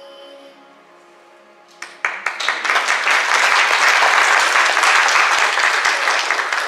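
The last held note of a song fades. About two seconds in, a congregation breaks into loud, steady applause with dense hand clapping.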